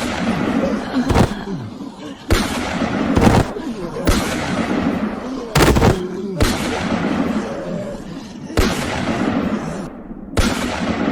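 Gunshot sound effects: a string of single sharp shots about a second apart, each with a fading echo.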